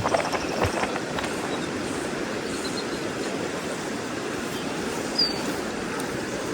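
Steady rushing of river water, an even unbroken wash, with a brief high chirp about five seconds in.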